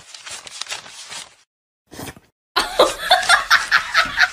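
A person laughing, a quick run of loud 'ha' pulses that starts about two and a half seconds in after a short pause.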